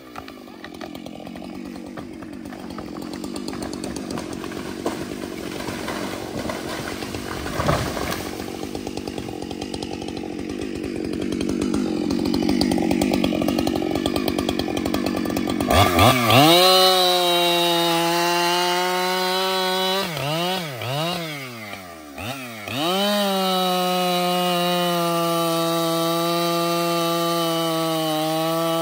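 Brand-new Husqvarna 592 XP two-stroke chainsaw running at low revs and growing louder, then opened up to a high steady pitch about halfway through. The revs dip and climb several times before holding high as the saw cuts into the freshly felled log near the end.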